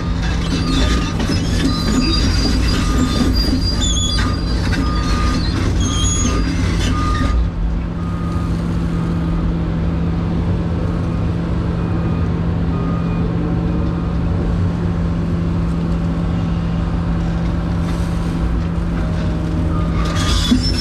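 Excavator's diesel engine and hydraulics running under load, heard from inside the cab. For the first several seconds, high metallic squeals and scraping come as the bucket digs into the trench. The engine then runs steady while the loaded bucket swings, and the squealing returns near the end.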